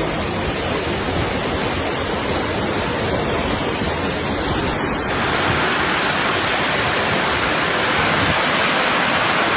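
Loud, steady rush of floodwater, a dense wash of water noise with no distinct events; its tone changes abruptly about five seconds in, as the footage cuts to another stretch of flowing water.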